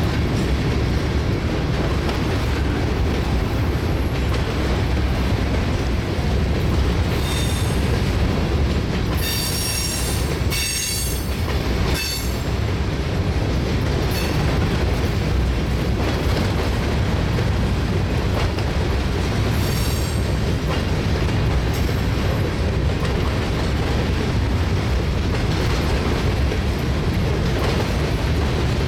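Freight train of covered hopper cars rolling past, its steel wheels giving a steady heavy rumble and clatter on the rail. High-pitched wheel squeals ring out several times, the loudest about a third of the way through and another about two-thirds through.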